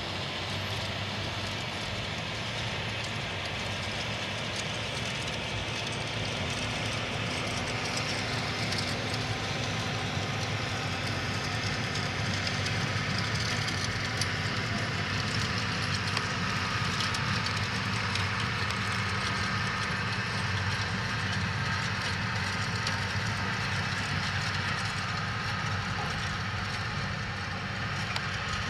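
New Holland T7 tractor's diesel engine running steadily under load as it pulls a Schuitemaker Rapide self-loading forage wagon picking up cut grass. The wagon's pick-up and loading rotor add a dense mechanical noise, and the sound grows a little louder as the rig passes close.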